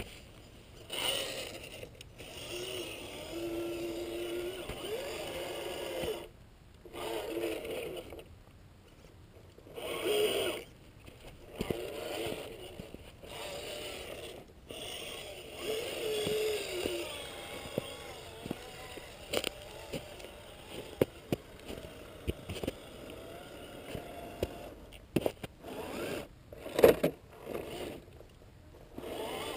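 Gmade Sawback RC scale crawler's 27-turn brushed electric motor and gear drivetrain whining in bursts as the throttle is worked, the pitch rising and falling with speed and pausing between bursts. Tires scrape over snow and rock, with scattered clicks and a few sharper knocks near the end.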